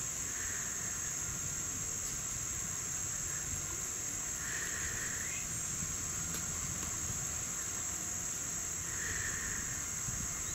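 Steady high-pitched chorus of insects trilling without a break, over a faint low rumble.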